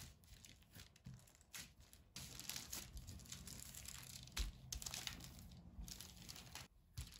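Faint rustling and crinkling of baking parchment as hands press out dough and a wooden rolling pin is rolled over it, with a few soft knocks.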